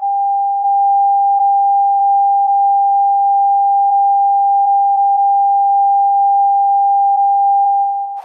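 A single steady electronic alert tone, mid-pitched and unwavering, held for about eight seconds and then cut off abruptly. It is an Emergency Alert System attention tone played slowed down.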